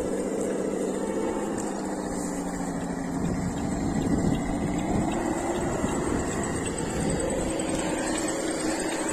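Radio-controlled scale trucks driving: electric motor and gearbox whine rising and falling in pitch with the throttle.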